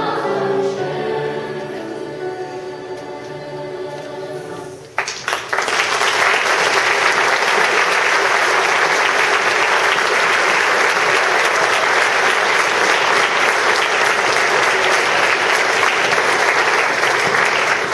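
A large middle-school choir holds and fades out its final chord, then the audience breaks into loud, steady applause about five seconds in.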